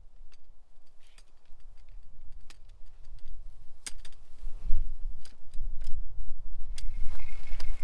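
Wind buffeting the microphone as a low rumble that grows stronger about halfway through, with scattered sharp clicks and a denser run of small clinks near the end.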